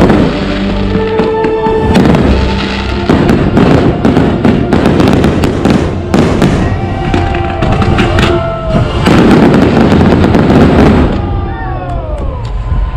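Fireworks bursting and crackling in quick succession over loud show music. The bursts die away about eleven seconds in, and rising and falling whistles follow near the end.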